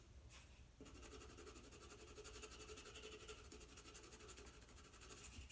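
Faint scratching of a white charcoal pencil shading on black drawing paper.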